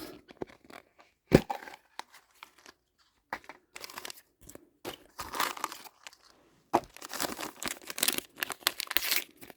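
Crinkling and tearing of thin plastic wrapping as a Mini Brands capsule ball and its small sealed packets are opened, with a sharp snap about a second and a half in and a long stretch of dense crinkling near the end.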